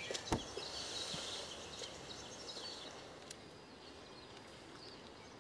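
Faint background ambience with a single sharp click shortly after the start and a few faint high chirps early on, fading lower toward the end.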